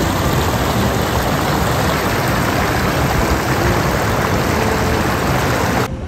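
Rushing water of a clear mountain stream flowing over stones, a steady hiss that cuts off suddenly just before the end.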